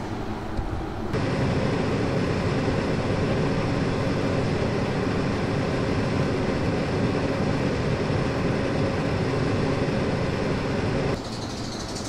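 Tobu 50090 series electric train standing at the platform, its onboard equipment running with a steady, dense hum heard close beside the car. The sound comes in abruptly about a second in and drops back abruptly about a second before the end.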